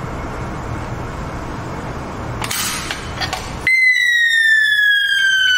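A few clicks as the manual call point is pressed, then about two-thirds of the way through a fire alarm strobe sounder suddenly starts a loud siren, one tone slowly sliding down in pitch. The call point has set off the alarm on the loop.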